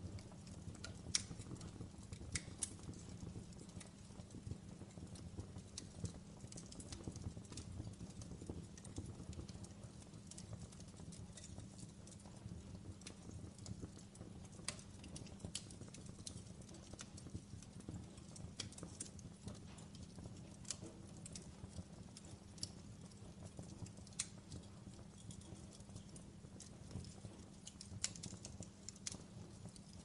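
Campfire wood burning and crackling: irregular sharp pops and ticks over a faint, steady low rumble.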